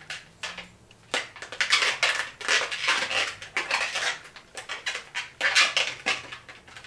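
Latex 260 twisting balloon being handled as its ends are knotted together, the rubber rubbing and squeaking against the fingers in quick, irregular scrapes.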